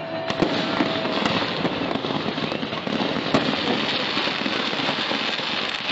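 Fireworks display: dense, continuous crackling with a few sharper bangs, the loudest about half a second in and again at about three and a half seconds.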